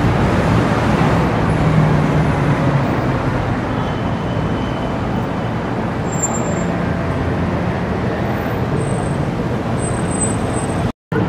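City street traffic: a steady wash of car and engine noise, with a low engine hum swelling about two seconds in.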